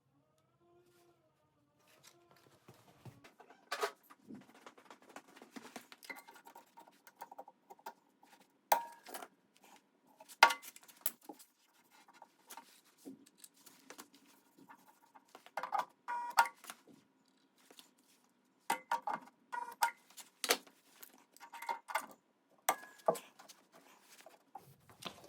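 Irregular light metallic clinks and knocks, each with a short ring, from hand tools handled and tapped against sheet metal during dent repair.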